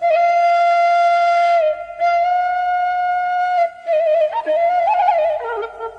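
Background music: a single melodic line of long held notes, turning to quick ornamented notes from about four seconds in.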